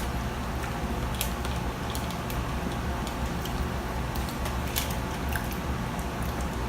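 People eating chicken wings and fries at a table: chewing and mouth sounds with scattered light clicks and taps, over a steady low hum.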